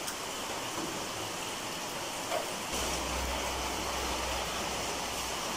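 Steady hiss of heavy rain falling, with a low rumble from about three to five seconds in.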